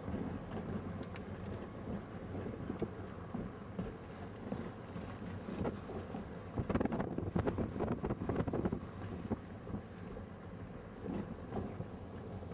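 Rumbling road and engine noise of a moving vehicle, with wind buffeting the microphone. It gets louder and bumpier for a couple of seconds about seven seconds in.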